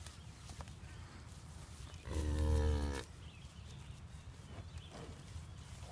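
A cow mooing once: a single level call of about a second, starting about two seconds in.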